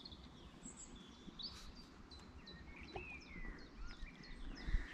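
Small birds singing: short high chirps and whistles, turning in the second half into a run of quick, evenly spaced notes, over a low rumble.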